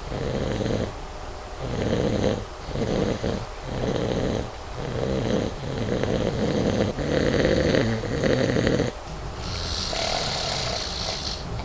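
A man snoring loudly in his sleep: a run of rasping snores, each under a second to about a second and a half long, with short gaps between them. Near the end the snoring gives way to a hissier breath.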